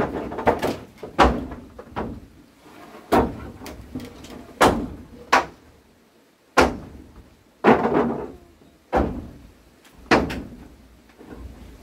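Repeated heavy knocks: about a dozen irregular blows, roughly a second apart, each with a short ringing tail.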